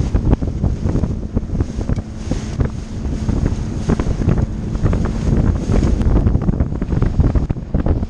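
Strong wind buffeting the microphone on a bass boat running fast over choppy water, with irregular thumps and splashes as the hull hits the waves.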